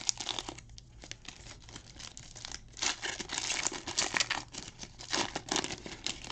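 Foil wrapper of a Panini Prizm football card pack crinkling and tearing as hands pull it open, in irregular crackles that are loudest about halfway through.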